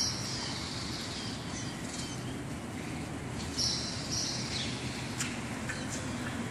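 Steady outdoor background noise with a few short, high-pitched chirps: one right at the start and two close together a little past halfway. There are faint taps in between.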